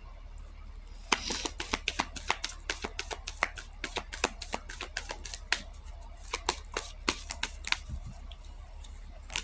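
Tarot cards being shuffled by hand: a run of quick, irregular card slaps and clicks, several a second, starting about a second in and stopping near the end.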